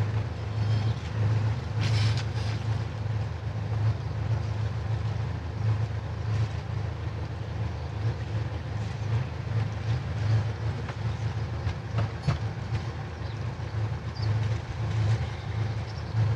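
Catamaran's diesel engines running at low revs in gear for manoeuvring, a steady low throb with an even pulse.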